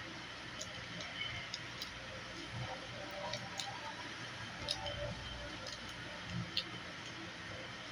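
Faint scattered clicks and ticks, irregular and a few per second at most, over a steady background hiss.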